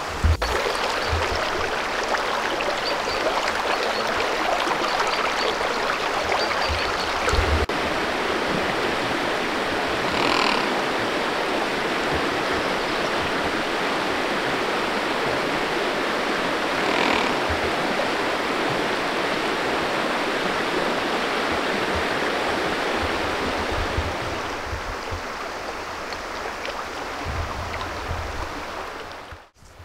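Shallow river running over a stony bed: a steady rush of water, a little quieter for the last few seconds, with two brief higher-pitched sounds standing out above it about ten and seventeen seconds in.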